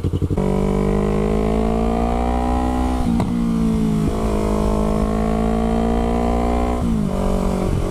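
Yamaha YZF-R3's parallel-twin engine through a DG V2 full exhaust system, accelerating under way with the pitch rising. The note breaks briefly about three and four seconds in, then runs fairly steady before dropping near the end.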